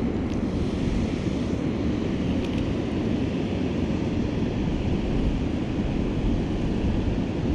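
Steady wind rumbling on the microphone, with no distinct event standing out.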